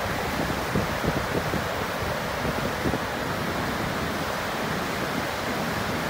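Heavy water pouring down a stepped stone dam spillway and churning in the pool below: a steady, even rush.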